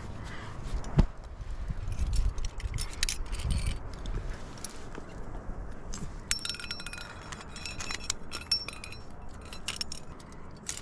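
Metal climbing gear (cams and carabiners) clinking and jingling as a cam is placed and clipped in a granite crack, with the busiest run of high ringing clinks from about six to nine seconds in. Before that, dull knocks and scuffing against the rock, and one sharp click about a second in.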